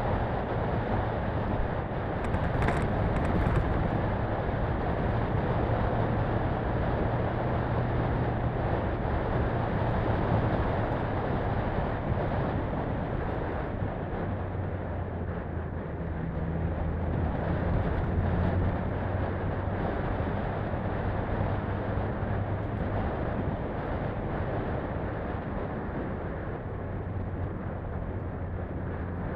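Daihatsu Feroza 4x4 driving on a gravel forest road: the engine runs steadily under a constant rush of tyre and road noise. Its note drops a little about halfway through. A brief sharp knock comes about three seconds in.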